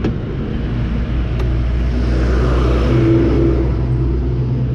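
Gearless scooter's small single-cylinder engine running steadily under way, a low steady hum over road noise.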